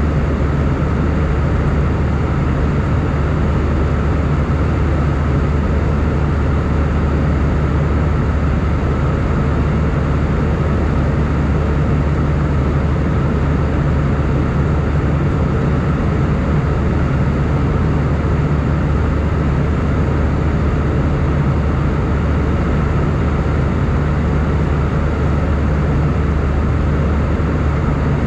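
Steady cabin drone of an Airbus A320 in flight, heard inside the cabin: engine hum and rushing airflow over a deep low rumble that holds constant.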